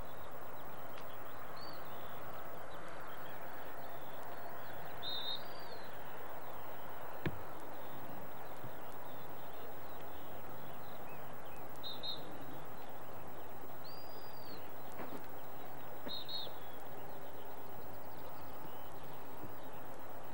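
Steady background noise of an open field, with about five short, high bird chirps scattered through it and one sharp click about seven seconds in.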